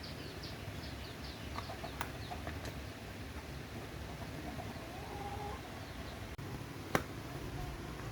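Birds chirping in a quick run of short falling notes, then a longer call about five seconds in, with a single sharp knock near the end.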